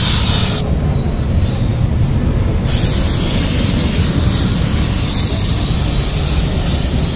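Handheld steam-wash gun blowing steam onto a car's bodywork: a steady, loud hiss over a low rumble. The hiss drops out for about two seconds near the start, then resumes.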